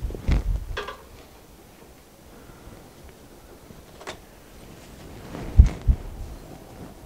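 Handling noise: a few dull thumps and bumps near the start and twice more about five and a half seconds in, with one sharp click about four seconds in, as someone moves about inside a small hide.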